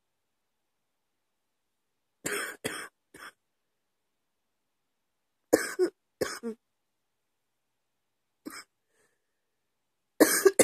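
A woman coughing in short bouts of two or three coughs, with silent gaps between them: a bout about two seconds in, another near the middle, a single faint cough later, and the hardest bout near the end.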